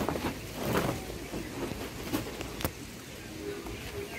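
Faint voices and outdoor wind noise, with a single sharp click about two and a half seconds in.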